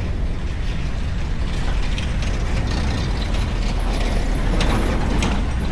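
Road traffic running past with a steady rumble and hiss, with faint scattered clicks.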